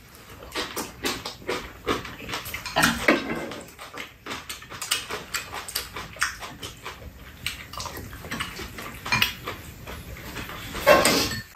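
Two people eating braised chicken: chewing and mouth noises mixed with many small clicks of chopsticks and a metal spoon against bowls and the pan, a little louder about three seconds in and again near the end.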